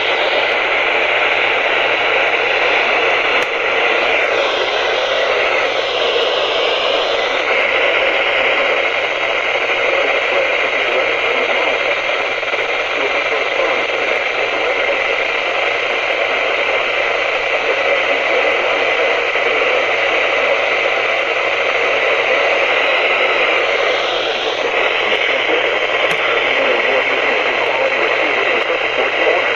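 Steady FM receiver static hiss from a software-defined radio tuned to the 162.400 MHz NOAA Weather Radio channel (WXL39). The station is too weak to come through the noise, with only faint wavering traces of it a few seconds in and again later on.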